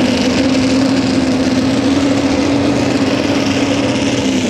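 Modified 4x4 pulling truck's big engine running steadily at raised revs while the truck stands still, its pitch creeping up slightly.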